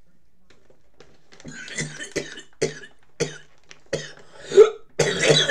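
A man coughing repeatedly: a run of about seven short coughs starting about a second and a half in, the loudest near the end.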